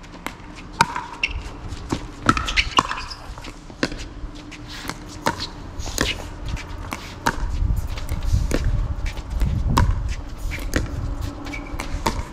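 Pickleball rally: paddles striking the hard plastic ball and the ball bouncing on the court, a quick irregular series of sharp pops, with a low rumble through the middle.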